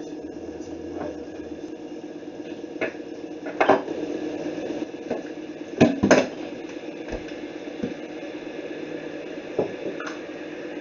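Electric glass kettle heating, a steady rushing noise, with several knocks and clinks of cups and dishes handled on the counter, the loudest a pair about six seconds in.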